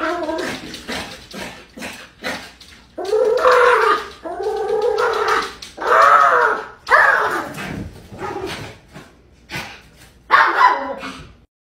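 Small fluffy white dog barking and whining in a string of high, drawn-out calls that rise and fall in pitch, cutting off abruptly near the end.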